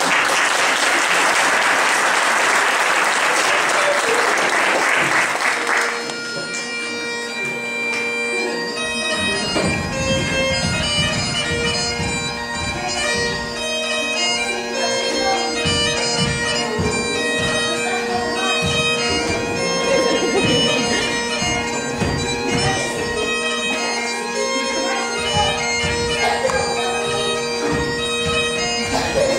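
Audience applause for about six seconds, then Highland bagpipes strike up, the drones holding a steady tone under the chanter's tune. From about nine seconds in, the dancers' steps thud on the stage along with the pipes.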